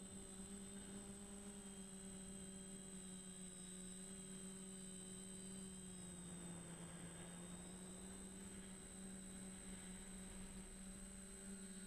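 Faint, steady hum of a DJI Flamewheel F450 quadcopter's motors and propellers, heard from a camera mounted on the aircraft, with a thin high whine above it. The pitch dips slightly about six seconds in, then comes back up.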